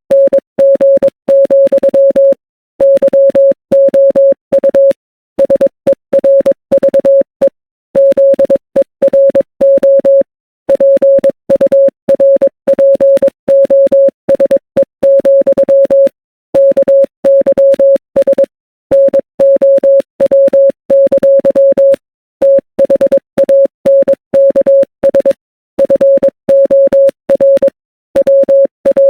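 Morse code sent as a single steady electronic beep, keyed on and off in quick dots and dashes. Longer pauses every second or two separate the letters and words of a spelled-out message.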